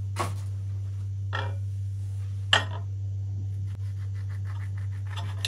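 A small kitchen knife and mandarin peel clinking lightly on a glass plate: three short clinks about a second apart, the third the loudest, over a steady low hum.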